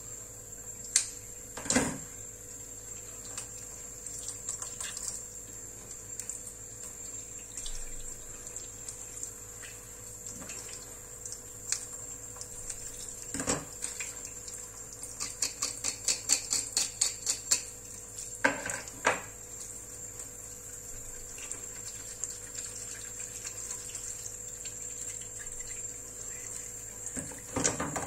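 Fish being cut open and filleted with a knife: scattered knocks, with a quick run of a dozen or so short taps and scrapes about halfway through. Under them sits a faint steady hum with a thin high tone.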